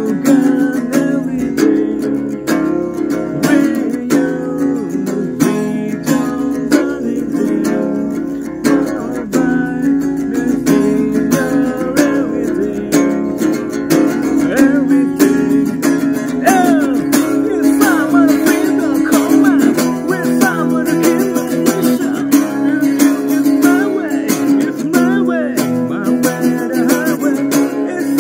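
Acoustic guitar strummed steadily, with a man singing over it; the voice comes through more clearly in the second half.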